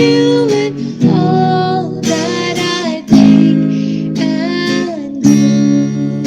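Sung prayer hymn with acoustic guitar accompaniment: chords strummed about once a second under long held sung notes.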